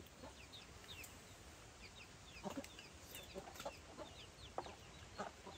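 Chickens clucking and peeping faintly, with many short, falling peeps scattered through.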